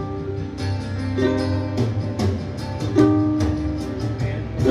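Flight concert ukulele made of amara wood strummed in chords, the strokes falling in a steady rhythm with the chord ringing between them.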